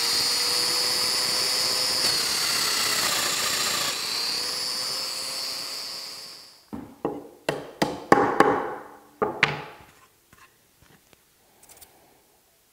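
Festool Domino joiner running with a steady high whine, its pitch sagging briefly under load as it cuts a mortise, then spinning down. This is followed by a quick run of sharp wooden knocks and clacks.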